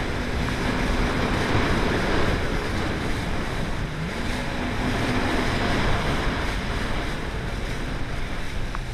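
Jet ski engine running under way, easing off about a second in and revving back up about four seconds in before easing off again, under a steady rush of water spray and wind on the microphone.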